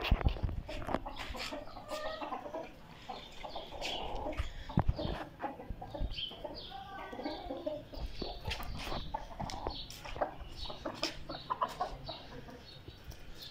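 Domestic chickens, hens and roosters, clucking in short, repeated calls, with a couple of louder knocks near the start and about five seconds in.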